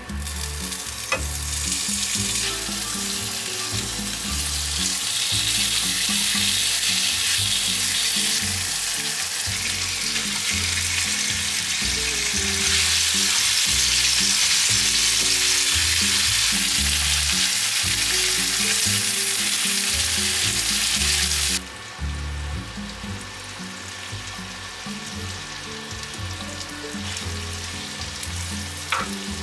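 Smoked duck, garlic and sliced onion sizzling in a cast-iron skillet while being turned with tongs. About twenty-two seconds in the sizzle drops suddenly to a quieter frying, stirred with a wooden spatula.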